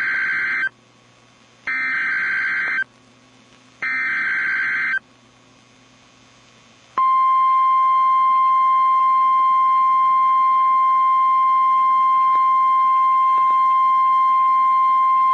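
Emergency Alert System SAME header: three bursts of warbling digital data tones, each about a second long with about a second of silence between them. About seven seconds in, a single steady, unwavering alert tone of the kind NOAA Weather Radio uses (1050 Hz) starts and holds.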